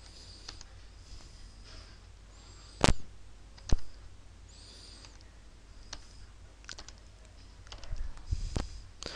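Computer mouse button clicks: two sharp, loud clicks a little under a second apart, then a few fainter clicks near the end.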